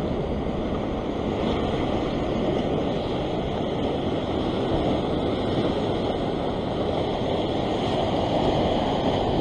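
Ocean surf breaking and washing over a rock ledge: a steady rush of white water.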